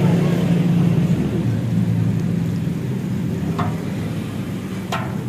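Steady rumble and hiss from the wood fire under a large karahi of mustard oil, with two short clinks about three and a half seconds in and again near the end.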